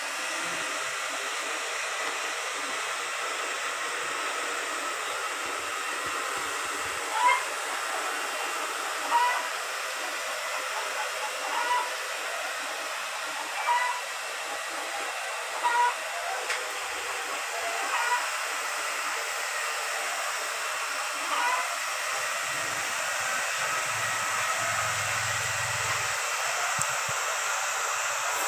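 Steady hissing noise with a short, high animal call every couple of seconds, the calls stopping a few seconds before the end.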